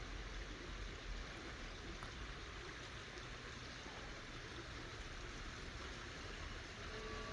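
Water splashing steadily in an even wash. Near the end a church bell starts to ring, its tones coming in over the water.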